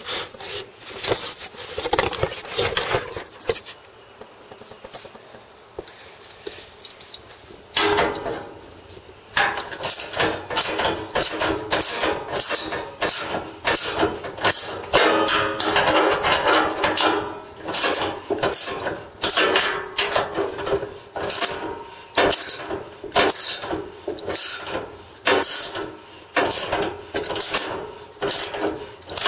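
Hand ratchet with a half-inch socket, worked in repeated strokes to back out the mower's hood bolts, clicking about once or twice a second through the second half, after a few seconds of scraping and rubbing at the start.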